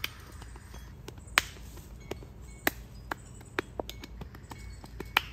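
Snap-together tent frame being put up: a run of sharp, irregular clicks and snaps, roughly two a second, as the poles and fittings lock together.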